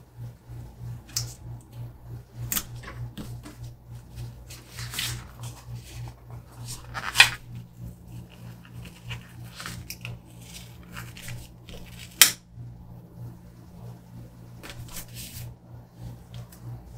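Glossy planner sticker sheets rustling and crackling as they are handled, with two sharper crackles about seven and twelve seconds in. A steady low hum pulses evenly underneath.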